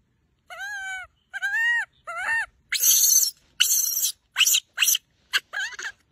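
Baby rhesus macaque giving distress calls: three clear, arched, whistle-like coos, then about six short, harsh, shrill screeches.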